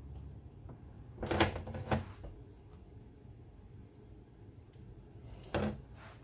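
Short clatter of steel locking-plier clamps being handled on a workbench, in two bursts: one about a second in and another near the end.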